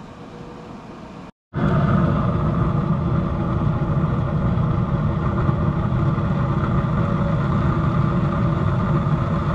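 Wood pellet smoker running with its pellets burning at full flame in the fire pot: a loud, steady rushing noise with the even hum of the grill's fan, following a quieter hum that breaks off about a second in.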